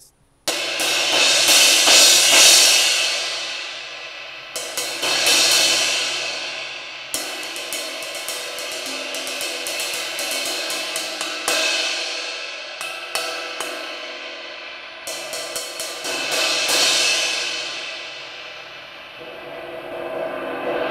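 Zildjian 18-inch K Constantinople crash cymbal, its crack repaired by cutting it out into a crescent-shaped slot, struck repeatedly with a drumstick in strokes and quick rolls that build into a sustained wash. Near the end a felt mallet roll swells it up again.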